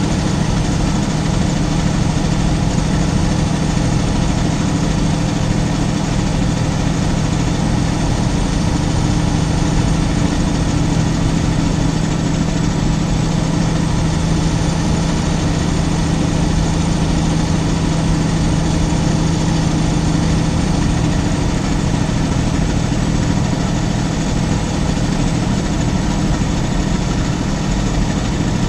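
Semi-truck's diesel engine and road noise heard from inside the cab: a steady, loud drone with a strong low hum that eases about three-quarters of the way through.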